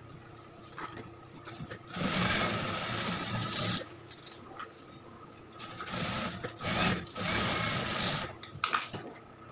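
Industrial flatbed lockstitch sewing machine stitching cloth in two runs of about two seconds each, with a pause between them, and a few light handling clicks around them.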